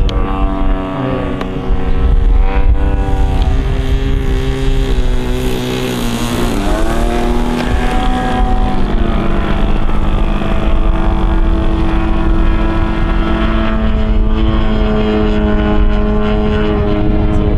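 Single-cylinder two-stroke DA-50 petrol engine of a large radio-controlled Yak 54 aerobatic plane in flight, running through a Zimmerman exhaust pipe. Its pitch shifts with throttle and passes, dipping and rising again about six to seven seconds in, then holding steady.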